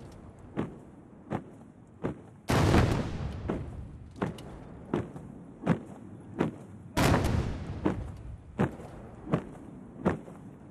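Ceremonial artillery salute: two salvos about four and a half seconds apart, each a heavy boom that rolls away slowly. Between them the honour guard's boots strike in unison, a sharp knock about every three-quarters of a second.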